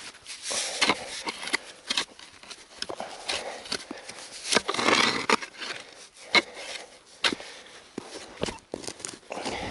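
Digging with a shovel in earth to free a buried iron piece: a string of sharp knocks and scrapes of the blade, with a longer scrape about five seconds in.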